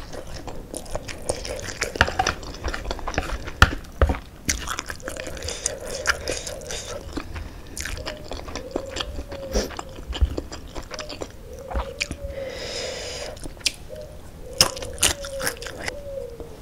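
Close-up wet chewing and lip smacks of spicy fried noodles, many sharp clicks, with noodles sucked in from chopsticks and a hissing slurp about three-quarters of the way through.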